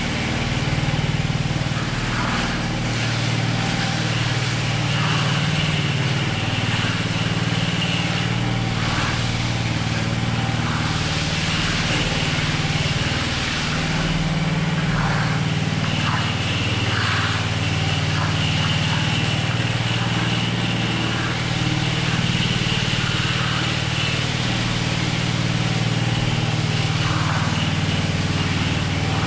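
Gasoline power trowel's small engine running steadily while it works the fresh concrete slab, with a hum that holds an even pitch.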